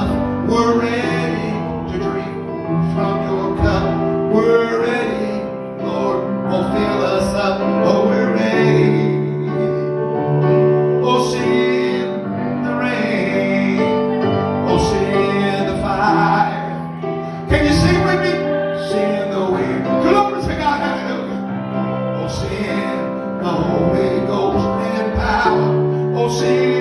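A man singing a slow gospel song over steady instrumental accompaniment, holding long notes.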